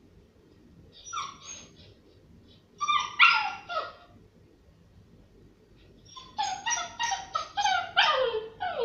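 Small white dog making high-pitched whining cries, left alone by its owner: the distress of separation anxiety. One short cry about a second in, a louder cluster around three seconds, then a quick run of short cries near the end, the last one sliding down in pitch.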